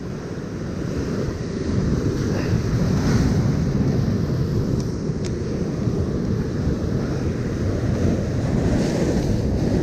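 Wind buffeting the microphone over the steady rush of a heavy sea breaking on rocks.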